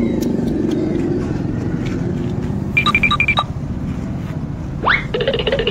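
Steady low rumble of motor traffic on the road, with a quick run of high electronic beeps about three seconds in and a short rising squeal near the end.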